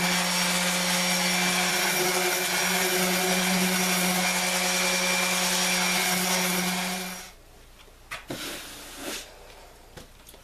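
Orbital sander running steadily with a low hum against the canvas canoe hull, dry-sanding the cured filler, then switched off abruptly about seven seconds in. A few faint knocks and rustles of handling follow.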